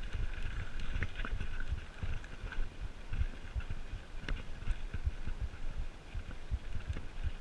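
Mountain bike rolling over rocky dirt singletrack, with tyre crunch, the bike rattling, and a few sharp knocks from bumps, the loudest about four seconds in. Under it runs a constant low, gusty rumble of wind and jolts on the microphone.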